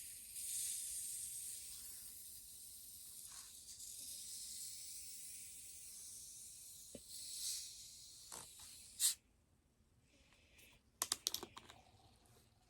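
Freshly opened ginger ale fizzing, a steady crackling hiss of carbonation that slowly fades over about nine seconds. A sharp click cuts in near the end of the fizz, and a few light clicks follow about two seconds later.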